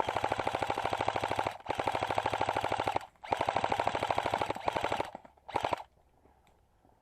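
Airsoft gun firing on full auto in four rapid bursts: three long strings, then a short one near the end.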